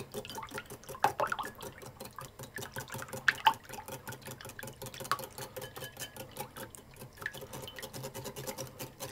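Whisk beating milk into eggs in a bowl: quick, regular clicking strokes against the bowl with liquid sloshing.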